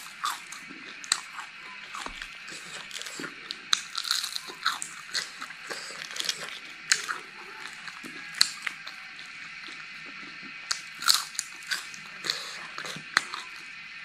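Crispy deep-fried cicadas being bitten and chewed close to the microphone: irregular sharp crunches and crackles as the shells break.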